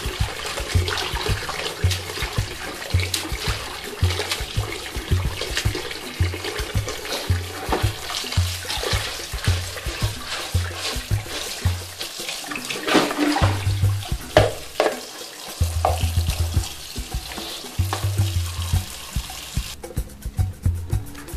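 Tap water running into a plastic bowl in a stainless steel sink, with hands swishing and splashing in the water, under background music with a steady bass beat. The water noise drops away near the end.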